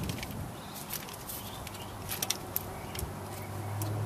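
Scattered metal clicks and clinks of a socket wrench and extension being fitted to and turned on a truck's lug nuts, with a low steady hum coming in near the end.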